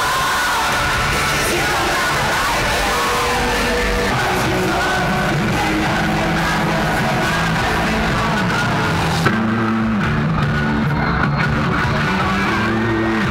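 Live rock band music in an arena, with the crowd yelling and singing along. The sound changes abruptly about nine seconds in.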